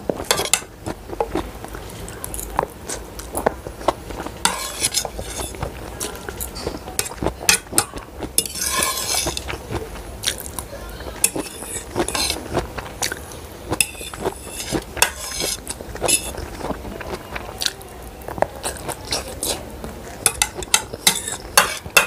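A metal fork clicking and scraping against plates as the last noodles and vegetables are scooped up, with close-up chewing and biting sounds in between.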